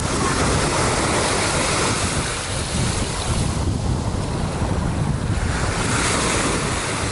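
Wind buffeting the microphone as a heavy low rumble, over a steady rush of sea water whose hiss thins briefly about halfway through and then comes back.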